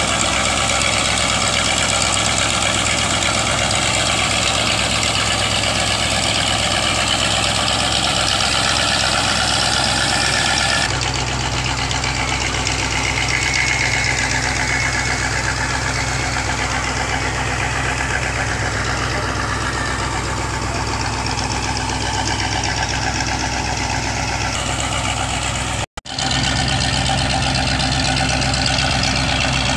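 Sand-pump dredger's engine running steadily under load as it pumps sand-and-water slurry out of its raised discharge pipe, with a steady rushing hiss over the engine.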